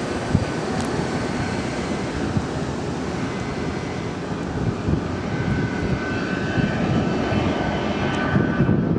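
Boeing 757 jet engines running at low power as the airliner taxis and turns: a steady rumble with a faint high whine that fades and returns.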